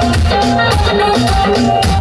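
Loud DJ music over a sound system, with a heavy bass beat and a repeating melody.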